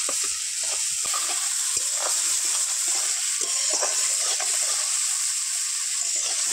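Small shrimp sizzling as they fry in hot mustard oil in a metal kadai, with a steady hiss and irregular scrapes and clinks of a metal spatula stirring them against the pan.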